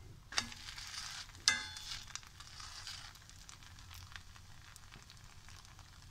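A metal spatula clicks sharply twice on an iron tawa as a paruppu poli, a sweet lentil-filled flatbread, is flipped, the second click the louder, about a second and a half in. Then a faint, steady sizzle as the flatbread cooks in ghee on the griddle.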